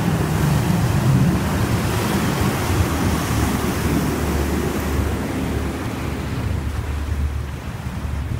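Steady rushing noise of flowing floodwater mixed with wind buffeting the microphone, with a heavy low rumble that eases a little near the end.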